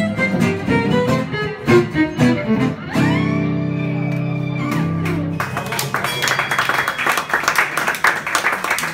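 A jazz trio of two guitars and a violin plays a quick closing run, then holds a final chord for about two seconds. Applause breaks out about five and a half seconds in.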